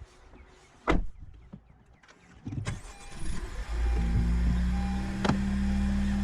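A single loud, sharp crack about a second in, typical of a seized front wheel bearing suddenly giving way as a shop press forces it out of the hub. From about halfway through, a steady low drone with background music takes over.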